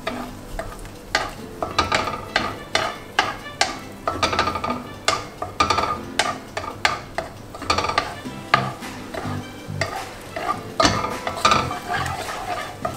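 Wooden spatula scraping and knocking against a non-stick frying pan, irregularly several times a second, as egg is stirred and broken up in hot oil, over a steady sizzle of frying.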